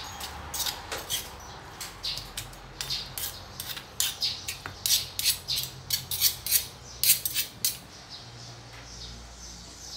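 Metal spoon scraping and clinking against a stone mortar while chili paste is mixed and lightly pounded with a stone pestle: irregular short scrapes and taps, busiest from about four to eight seconds in.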